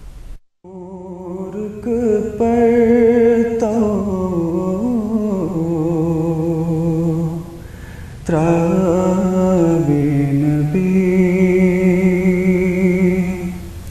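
A male voice singing a naat, a devotional song in praise of the Prophet Muhammad, in long held notes with a wavering pitch. The singing starts just under a second in and pauses briefly about two thirds of the way through.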